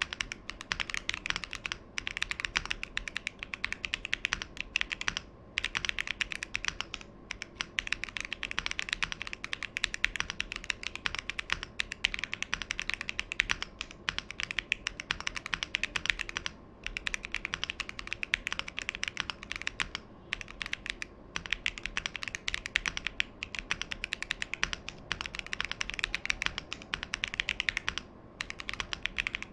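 Fast, continuous typing on a Tofu65 v2 mechanical keyboard with TTC Holy Panda tactile switches, a carbon-fibre plate on a silicone bowl mount, no case foam and GMK-style keycaps. The keystrokes come in quick, dense runs broken by a few short pauses.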